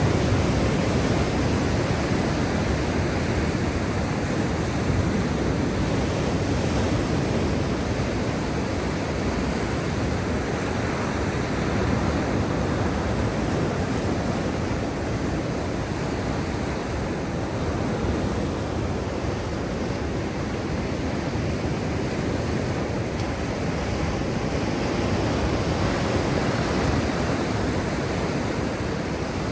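Black Sea waves washing ashore in a steady, continuous surf noise, with only slight rises and falls in loudness.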